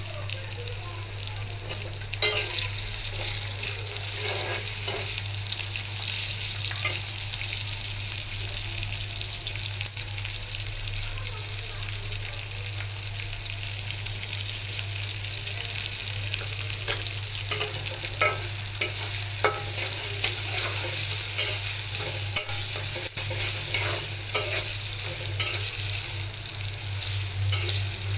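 Sliced onions sizzling in hot oil in a wok, with a steel spatula scraping and clicking against the pan now and then as they are stirred.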